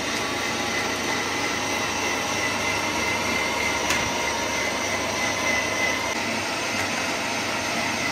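Electric meat grinder running steadily as tomatoes are pressed through it, a constant motor noise with a thin high whine.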